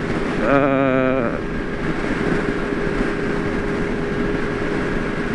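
Benelli Leoncino 500 parallel-twin running at a steady cruising speed, with wind rushing over the microphone. A short wavering voice-like tone sounds about half a second in.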